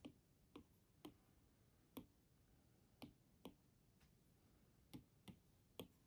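Apple Pencil tip tapping on an iPad's glass screen: faint, sharp clicks at irregular spacing, about nine in all.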